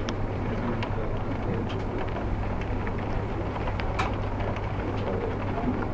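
Heavy rain heard through a window, with scattered raindrops tapping on the glass, the sharpest tap about four seconds in, over a steady low hum.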